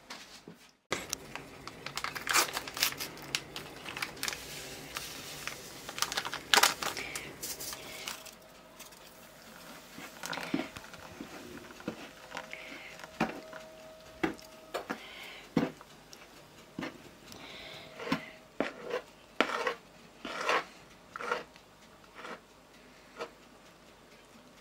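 Kitchen handling sounds: crinkling and rustling with a run of sharp clicks and light knocks, some bunched close together.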